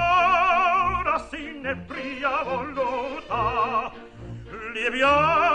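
Background music: an operatic voice singing with a wide vibrato, holding long notes, the last one sliding up near the end.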